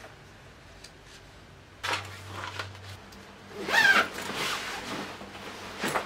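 Handling noises of clothes and a shoulder bag: a sudden rustle about two seconds in, then the loudest sound, a short squeaky zip-like rasp about four seconds in, and a click near the end.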